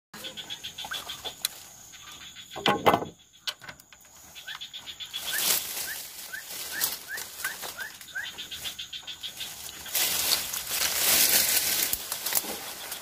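A bird calling with a run of about seven short rising chirps in the middle, over a steady high-pitched drone, with loud bursts of noisy rustling about two and a half seconds in and again near the end.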